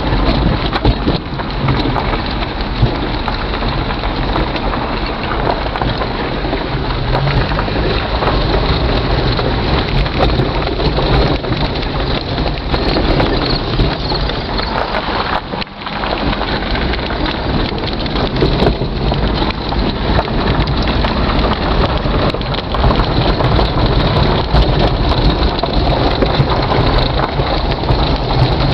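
Steady rushing, crackling road and wind noise of a vehicle driving along, heard from inside the cab. It dips briefly about halfway through.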